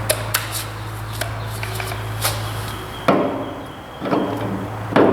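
A series of sharp knocks and clanks as parts of the tractor and snowblower hitch are handled. The loudest come about three seconds in, again a second later and near the end, over a steady low hum.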